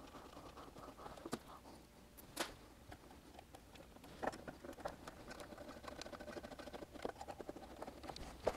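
Faint, scattered clicks and light taps of small mounting bolts and lock nuts being handled and fitted by hand as a dash display screen is fastened to its panel.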